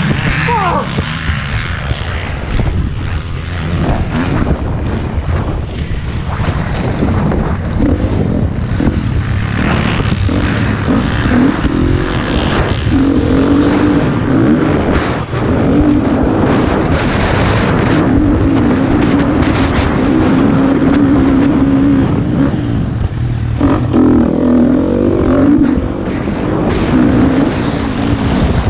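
KTM motocross bike engine revving hard, its pitch rising and falling as it is ridden through the gears, with wind buffeting the helmet-mounted microphone.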